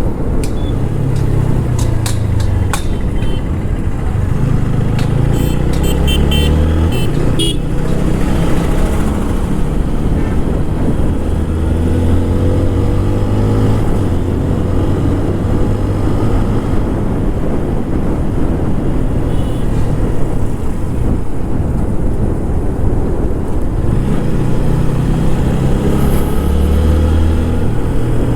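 TVS Apache RTR 160 4V single-cylinder engine pulling under way, its pitch rising with the revs and stepping down at gear changes several times. A vehicle horn beeps a few times about six seconds in.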